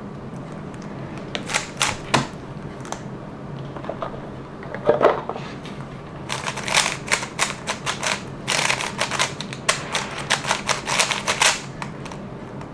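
Plastic 3x3 speedcube being turned, its layers clacking in quick turns: a few separate clicks in the first few seconds, then two longer runs of rapid turning in the second half.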